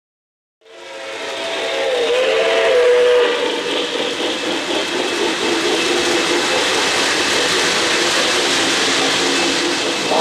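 O-gauge model trains running on the layout's three-rail track, with a steady rolling rumble and clatter fading in under a second in. A model steam whistle from the locomotive's sound system blows briefly, wavering in pitch, about two seconds in.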